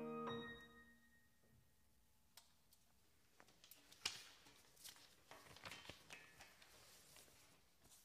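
The final saxophone and piano note dies away within the first second, then near silence broken by faint clicks and soft paper rustles as sheet music is handled on a music stand, with one sharper click about four seconds in.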